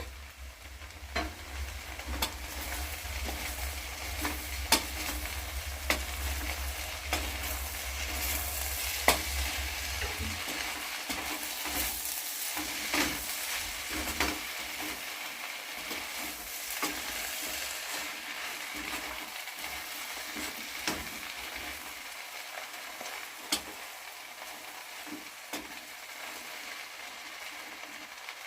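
Okra and chicken sizzling in oil in a pan while being stirred, with the spoon knocking and scraping against the pan now and then.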